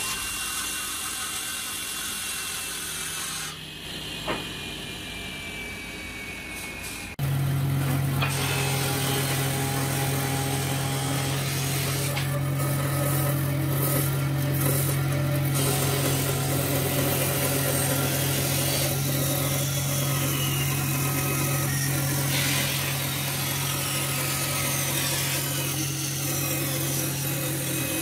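Circular table saw running for about seven seconds, its thin whine slowly falling in pitch; then a band saw takes over with a steady motor hum as its blade rips a wide hardwood board lengthwise.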